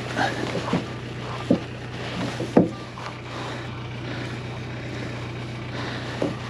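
A vehicle engine idling steadily, with a few short knocks and clanks over it, the loudest about a second and a half and two and a half seconds in.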